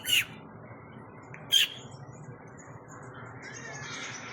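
Short, sharp bird squawks: one right at the start and another about a second and a half in, with fainter chirping near the end.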